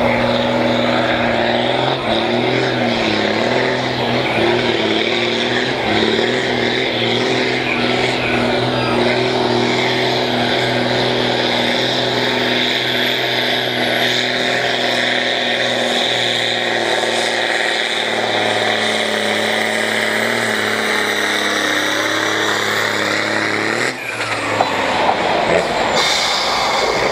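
Farm tractor's diesel engine running at full load while pulling a weight sled, a loud steady engine note that wavers in pitch. About 24 seconds in the sound changes abruptly to a different engine sound.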